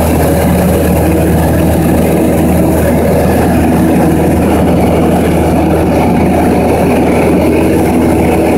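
Light aircraft's piston engine and propeller droning steadily in cruise, heard from inside the cabin, loud and unchanging, with a constant rush of air.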